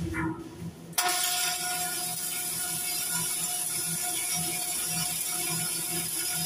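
Electric arc welding: the steady crackling buzz of the welding arc, which is off for the first second and strikes back up abruptly about a second in, then runs on evenly.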